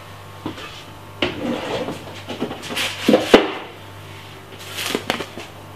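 Off-screen kitchen handling: a series of knocks and clatters with some rubbing, loudest about three seconds in.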